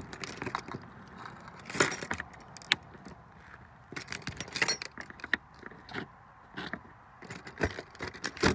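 A bunch of keys on a ring jangling, with sharp clicks, as a key is worked in the lock of a motorhome's exterior storage compartment door. The jingling comes in several short clusters.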